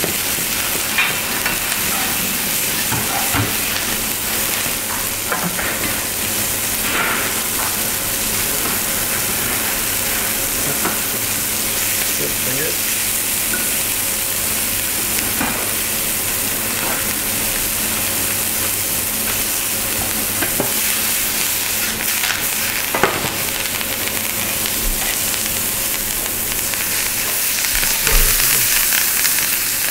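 Porcini mushrooms sizzling steadily in a hot frying pan, with a metal spoon now and then clicking and scraping against the pan as they are stirred.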